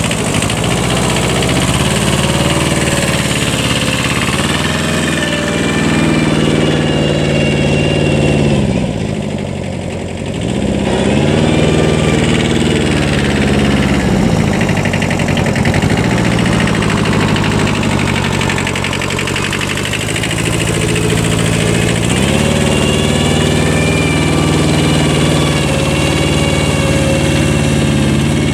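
Kubota 5001 compact 4x4 tractor's small diesel engine running steadily, its speed dipping and picking up again several times as it works under load, with a faint gear whine above it.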